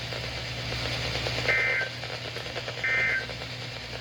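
NOAA Weather Radio SAME end-of-message code: two short, identical warbling digital data bursts about a second and a half apart, over steady radio hiss and hum. They signal the end of the Required Weekly Test alert.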